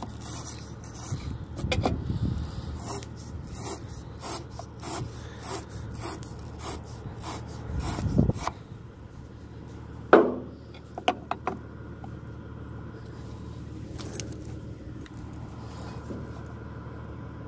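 Metal scraping and rubbing at a tractor's battery terminal and cable clamp, short strokes about two a second for the first eight seconds or so. About ten seconds in comes one loud clunk with a brief falling squeak, then a few light clicks.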